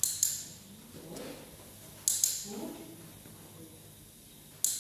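Dog-training clicker clicking three times, about two seconds apart. The first two are sharp double clicks, the press and release, marking the dog's behaviour for a reward. Faint low voices come in between.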